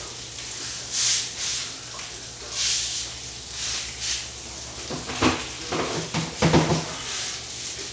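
Rustling and shuffling of a person moving, then a cluster of knocks and creaks as a plastic Adirondack chair takes his weight when he sits down, about five seconds in.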